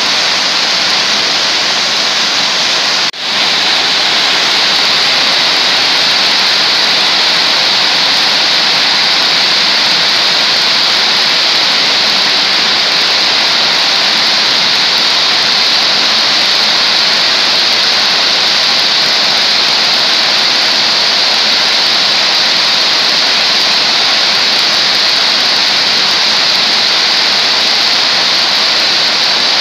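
Heavy rain falling steadily, a dense, even hiss of downpour on the ground and puddles. It drops out for a moment about three seconds in, then carries on unchanged.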